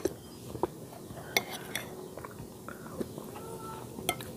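Metal spoon clinking against a ceramic plate of chicken soup: about six short, separate clinks a second or so apart as the food is scooped.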